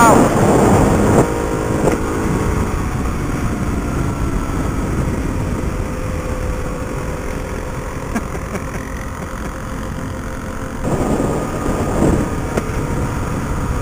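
Kawasaki KLR650's single-cylinder engine running at road speed, heard from the bike with wind rumbling on the microphone. The engine note falls as the bike eases off in the first second or so, then runs steadily, with a louder stretch about eleven seconds in.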